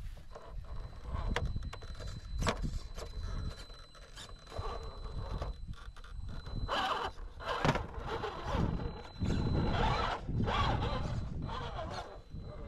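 Electric RC rock crawler clambering up concrete rubble: its tyres scrape and grind on the rock in irregular bursts, with sharp knocks and clicks as it climbs, over a low rumble.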